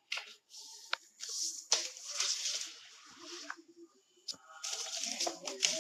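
A sheet of white paper handled and folded by hand: rustling and sliding in irregular bursts with a few sharp crinkles, and a brief pause a little past the middle.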